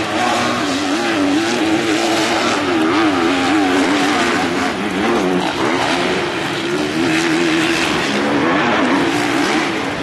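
Off-road dirt bike engines revving, their pitch rising and falling quickly and continually as the riders work the throttle over the course.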